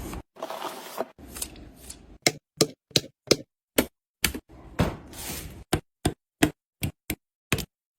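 A quick series of sharp clicks, taps and knocks from computer hardware being handled and fitted into a PC case, about one or two a second, some with a short rattle or scrape, broken by abrupt dead silences.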